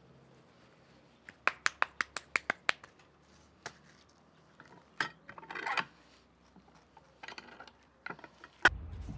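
Corn masa slapped between the palms, about ten quick slaps a little over a second long, as a tortilla is patted out by hand. Then a metal pot lid and spoon clink and scrape as beans are stirred in a small pot, with one sharp clink near the end.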